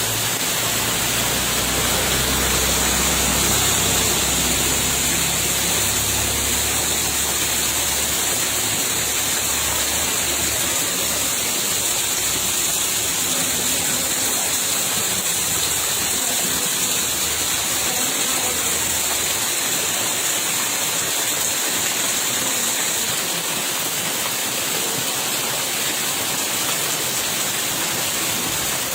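Steady, even rush of water, heavy rain or flowing floodwater, with a strong high hiss. A low rumble underneath fades out about ten seconds in.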